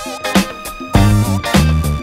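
Background music with a stepping bass line and a regular drum beat.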